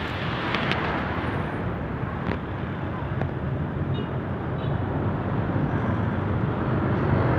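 Street traffic noise with a steady low rumble, heard while moving along a road.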